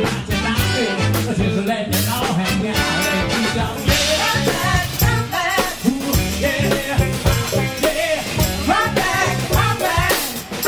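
Live funk and soul band playing, with drum kit and a singer's voice over the band.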